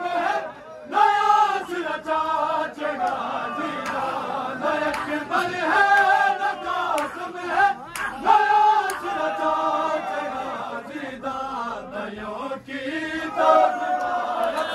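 Men's voices chanting a noha, the Shia lament for the martyrs of Karbala, in a sung, drawn-out melody that carries on with brief breaks.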